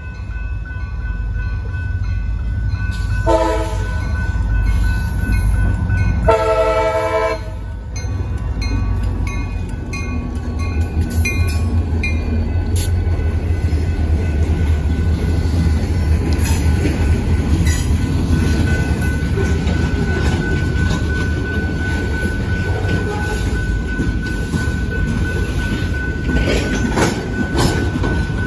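Freight train at a grade crossing: two CSX diesel locomotives sound their horn, a short blast about three seconds in and a longer one a few seconds later, while their engines rumble past. After that the freight cars roll by with steady wheel noise and clicking over the rail joints, and a crossing bell rings throughout.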